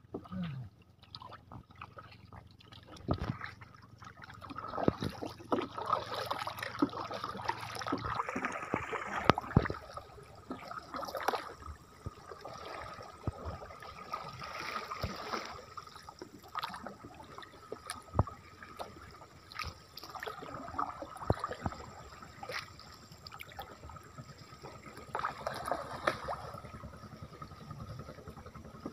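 A hand paddle dipping and pulling through river water from a small boat, with irregular splashes, dripping from the blade and occasional sharp knocks.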